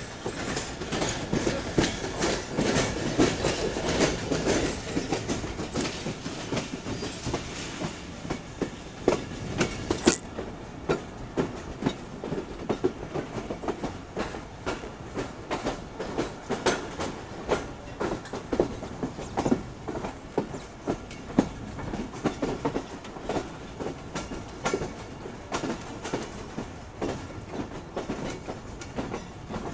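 Wheels of a moving Pakistan Railways express passenger coach clattering over rail joints and junction points, with a steady running rumble. The clacks come densely for about the first ten seconds, then more spaced and irregular.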